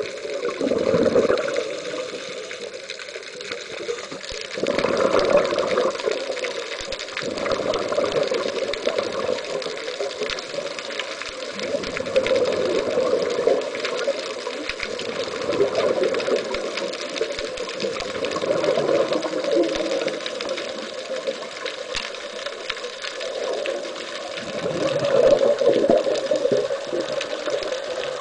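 Scuba diver's regulator breathing, heard underwater: bursts of exhaled bubbles swelling up about every four seconds over a steady bubbling hiss.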